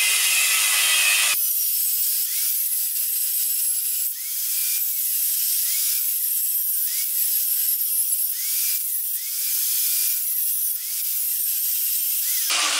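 Angle grinder with a cutting disc cutting a slot into steel flat bar, running steadily under load. About a second in, the sound thins to a high hiss and then turns fuller again near the end.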